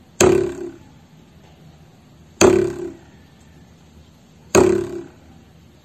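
A ruler held down at one end and flicked at its free end three times, about two seconds apart. Each flick gives a low vibrating twang that dies away within about half a second.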